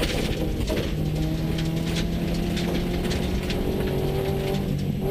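Subaru rally car's flat-four engine heard from inside the cabin, pulling steadily in one gear, its note climbing slowly from about a second in, over the noise of gravel under the tyres.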